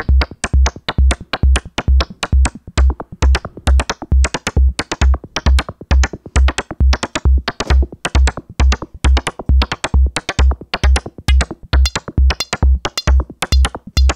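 Electronic drum loop from Reaktor Blocks in Maschine at 134 BPM: a deep synthesized kick on every beat, about twice a second, under a sequenced synthesized bongo pattern of short pitched hits.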